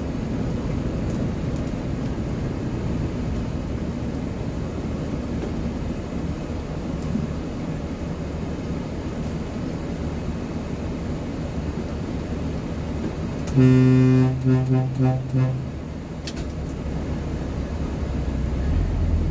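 Scania R500 V8 truck's engine running steadily on the road, growing louder near the end. About two-thirds of the way in a vehicle horn sounds for about two seconds, breaking into short toots at the end.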